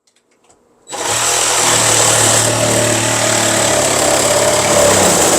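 A motor-driven machine running steadily: a low hum under a loud, even hiss. It starts about a second in and cuts off at the end.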